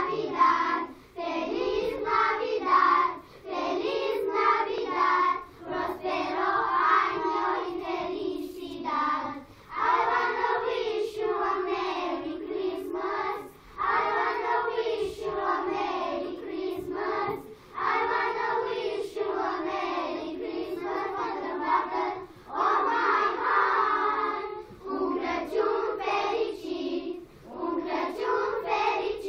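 A group of young children singing a song together in unison, in phrases with short breaks for breath.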